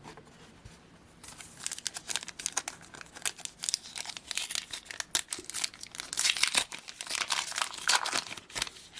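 Panini Adrenalyn XL trading card packet being torn open, its plastic wrapper crinkling in a dense run of crackles that starts about a second in.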